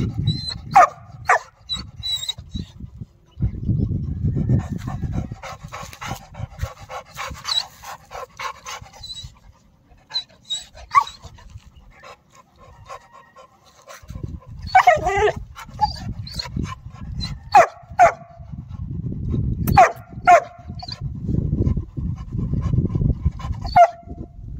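Yellow Labrador puppies barking: short, high single barks spaced irregularly, several in quick pairs, with a low rumble in between at times.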